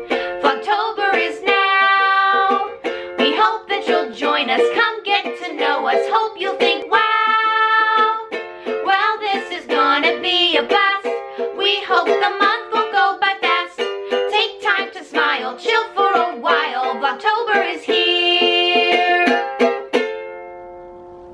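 Two women singing a cheerful song together to a strummed ukulele, the last chord fading out near the end.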